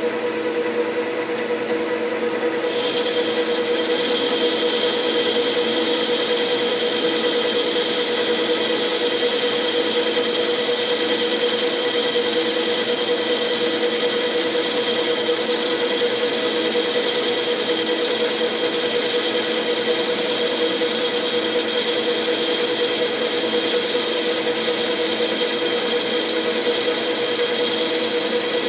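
Metal lathe running while a boring bar takes a light 0.1 mm finishing cut through a bearing bore: a steady machine whine with several constant tones. About three seconds in, a steady high hiss joins it.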